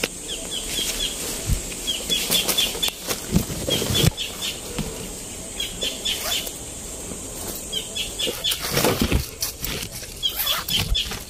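Leaves and brush rustling and crackling with footsteps as someone pushes through dense undergrowth, in irregular bursts. A high chirping call, about four quick notes at a time, repeats every couple of seconds behind it.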